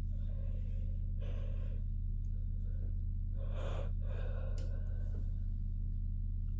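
Domestic cat purring steadily while being stroked on the head and chin, a sign of contentment, with two brief louder sounds about one and four seconds in.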